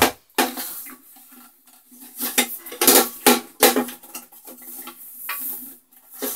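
Hard plastic body of a Tetra EX 800 Plus canister filter being handled and turned over: a run of irregular knocks, clicks and rattles of plastic parts against each other and the desk, busiest around the middle.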